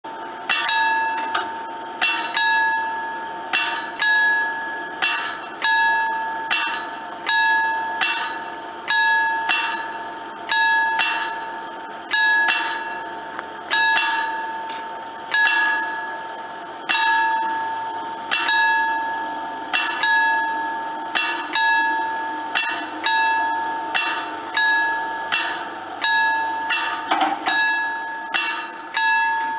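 Italian level-crossing warning bell struck over and over, each stroke ringing on into the next: the crossing is closing for an approaching train. Near the end there is a quick flurry of strokes.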